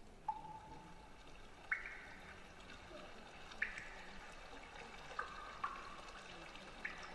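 Sparse water-drop plinks, about six short ringing drips at uneven intervals over a faint hiss, opening the musical score for the river-themed dance.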